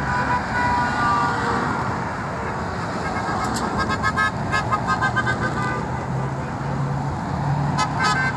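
Car horns honking over steady road traffic noise. There are a few longer blasts early on, then many short toots in quick succession from about three seconds in, and a few more near the end.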